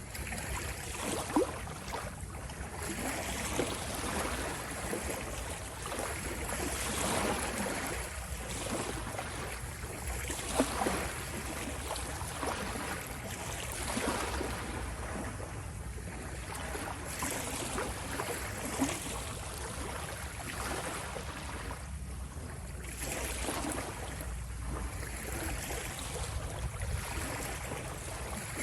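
Ocean waves washing and splashing, swelling and ebbing every few seconds, with a few sharper splashes.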